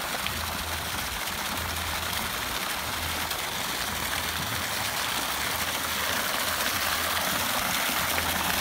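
Water pouring steadily from a wall spout and splashing into a swimming pool, a little louder near the end, with a low hum that comes and goes underneath.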